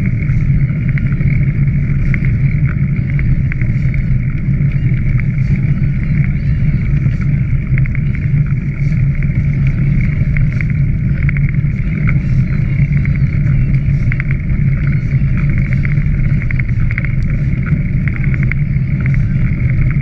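Steady rumble of wind on the microphone and ride noise from a camera moving fast along the riverside path, with faint rattles and clicks over it.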